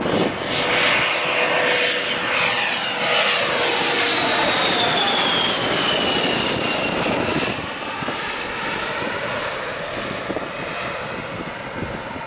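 Twin-engine business jet passing low overhead on its landing approach: turbofan noise with a high whine that falls in pitch as it goes by. The sound eases off from about seven and a half seconds in as the jet moves away.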